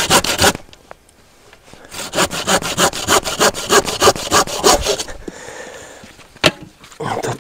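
Hand saw cutting wood with quick, even back-and-forth strokes, about five a second. One run of strokes stops about half a second in, and a second run starts about two seconds in and lasts about three seconds. A single sharp knock follows near the end.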